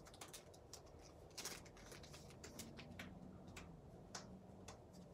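Trading cards being flipped through by hand: faint, irregular light clicks and snaps as the cards slide past one another, a couple a second.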